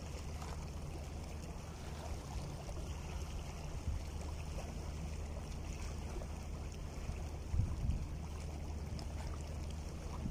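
Small sea waves lapping and washing against shoreline rocks, over a steady low rumble of wind on the microphone. Two brief louder low surges, about a third of the way in and again about three-quarters through.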